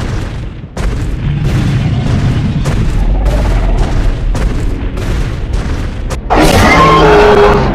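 Added dinosaur sound effects over dramatic film score: a deep, booming rumble with repeated heavy thuds, then a loud dinosaur roar breaking in about six seconds in.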